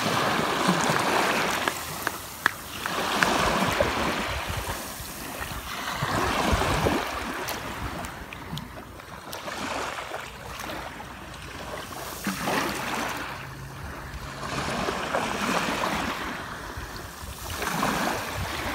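Shallow sea waves washing in over wet sand and draining back, the wash swelling and fading every few seconds, with one sharp tap about two seconds in.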